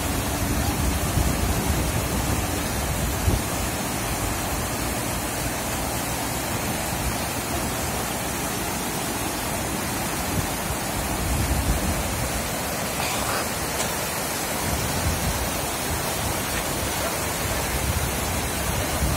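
Fast alpine mountain torrent rushing steadily over rocks, a loud, even roar of white water close by.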